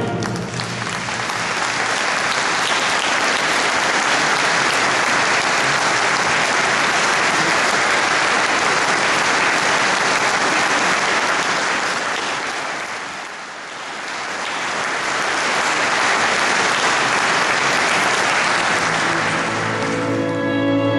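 Audience applauding after the orchestra's final chord. The clapping fades down and swells back up about two-thirds of the way through, and music comes in near the end.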